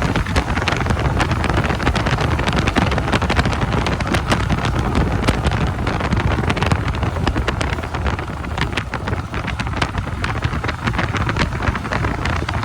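Heavy wind buffeting and crackling on the microphone of a moving motorcycle, over a steady low rumble.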